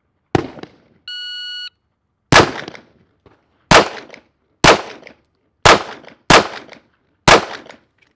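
A sharp crack, then a shot timer's electronic start beep of about half a second. Then six pistol shots are fired one at a time, roughly a second apart, one shot per target circle in a timed drill.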